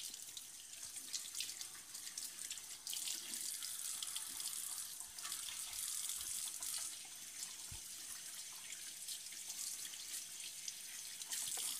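Kitchen tap running as a skinned rabbit is rinsed under it in the sink, water splashing steadily; the flow gets louder about three seconds in.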